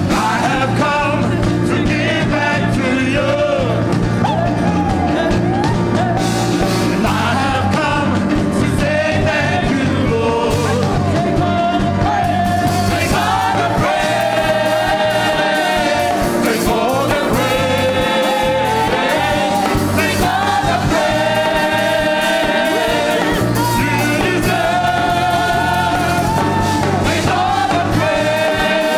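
A group of voices singing a song with a live band backing them. Around the middle the voices begin holding long notes together.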